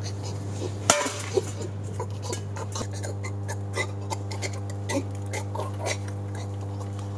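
A steady low hum under scattered small clicks and clinks, with one sharper click about a second in.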